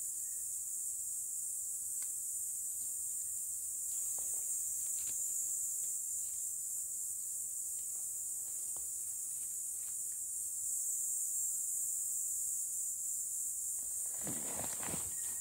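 Steady high-pitched insect chorus, with a brief rustle of leaf litter underfoot near the end.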